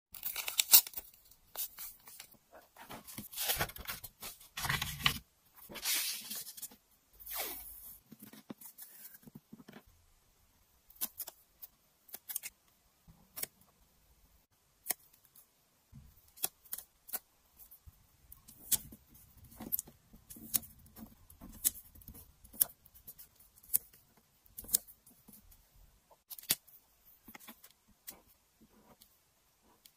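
Sticker sheets and paper being handled: crackly rustling and peeling for the first several seconds, then scattered light taps and clicks as stickers are pressed onto the journal page and a marker works on it.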